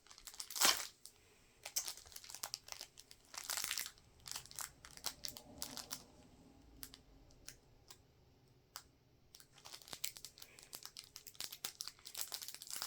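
Foil wrapper of a Pokémon card booster pack being torn open and crinkled by hand, in irregular bursts of crackling with a quieter stretch past the middle.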